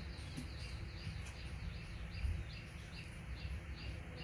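Background ambience: a thin, high chirp repeating evenly about four times a second over a steady low rumble.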